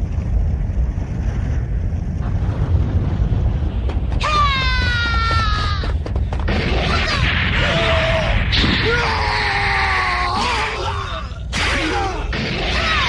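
A deep continuous rumble. About four seconds in it is joined by a drawn-out cry falling in pitch, then by strained wordless voices.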